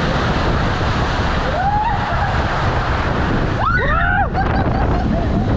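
Water rushing under a raft sliding down a water slide tube, a loud steady rush with wind on the microphone. A rider gives a short cry about two seconds in and a louder, higher shriek around four seconds in.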